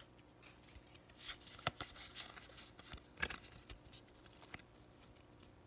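Pokémon trading cards being handled as they are flipped through one by one, sliding and flicking against each other in a few soft, scattered swishes and taps that die away after about four and a half seconds.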